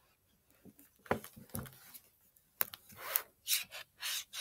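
Pages of a large hardcover picture book being turned and flipped by hand: a run of short papery rustles and swishes with a few sharp ticks, starting about a second in and getting busier near the end.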